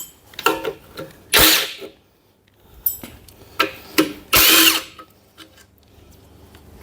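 A cordless power tool turning a socket runs in short bursts, twice loudly for about half a second each, to back out the bolts holding the 3SGE Beams exhaust manifold heat shield. Light metallic clinks come between the bursts.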